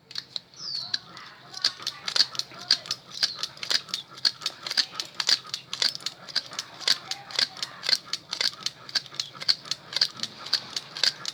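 Wire being wound onto a Bosch 2-20 drill armature during a rewind: rapid regular clicking, about four times a second, over a low steady hum.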